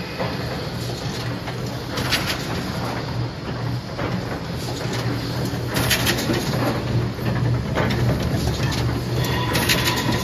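ZRD7.2-820A nylon fishing net making machine running: a steady low hum under a dense, rapid mechanical clatter, with a few louder sharp strikes every few seconds.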